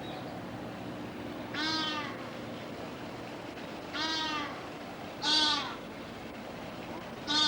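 An animal giving four short, pitched cries, each under half a second and a second or two apart, over a steady background hum.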